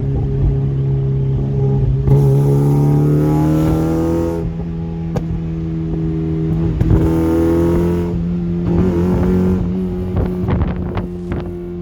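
Mazda MX-5 NB's four-cylinder engine through a homemade exhaust, pulling up through the revs twice with a gear change between. Near the end there is a run of sharp pops from the exhaust on overrun.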